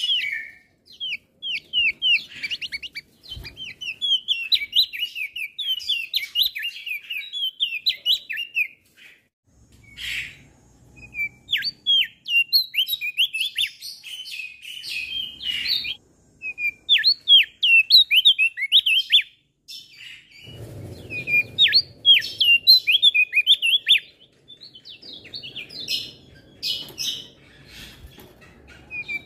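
A male opior jambul (Javan grey-throated white-eye) singing a fast, continuous run of short, high chirps and quick sweeping notes. A low rumble sits in the background at times.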